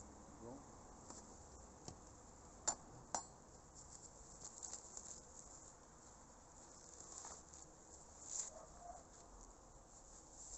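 Faint buzzing of honeybees flying around the hives, with two sharp clicks close together about three seconds in.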